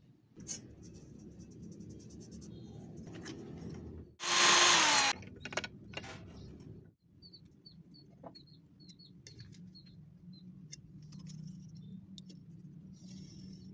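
A power tool runs in one loud burst of about a second, around four seconds in, its pitch dropping slightly before it cuts off. A low hum and a few small bird chirps are heard around it.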